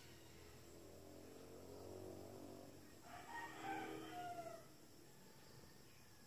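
Faint animal calls: a long, low, even-pitched call, then a louder, higher call about three seconds in that falls in pitch at its end.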